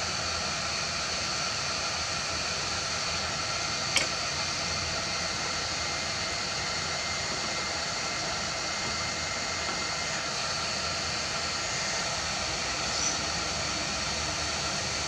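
858D hot air rework station blowing steadily, a constant hiss of air with a faint high whine, as it heats a chip to desolder it. A single short click about four seconds in.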